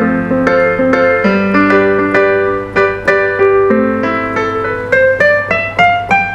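Roland E-X30 arranger keyboard playing its piano voice: struck chords and notes, ending in a rising run of single notes, with a steady low hum underneath.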